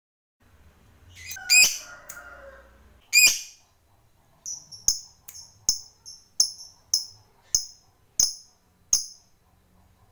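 Lovebird calling: two loud, shrill calls a second and a half apart, then a run of about ten short, sharp, high chirps, roughly two a second.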